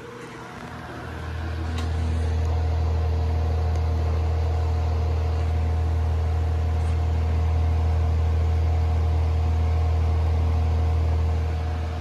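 Vintage early-1980s Artic Breeze 12-inch table fan running on high speed, with a steady motor hum. About a second in, a loud, steady low rumble swells up, holds, and falls away near the end.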